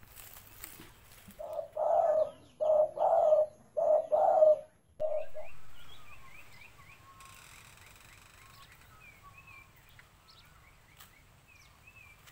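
A dove cooing: a run of about six loud, low coos that ends about five seconds in. Faint short chirps of small birds follow.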